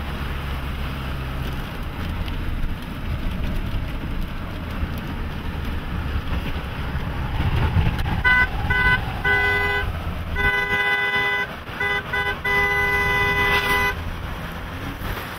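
A car horn honks repeatedly, about eight seconds in: a few short toots, then several longer blasts over a few seconds, sounding over the vehicle's steady road and wind noise.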